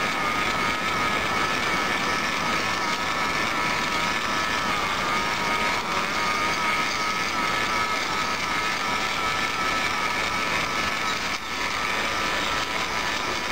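Battery-powered model locomotive running along garden railway track: its small electric motor and gearbox make a steady whine over the rumble of the wheels on the rails.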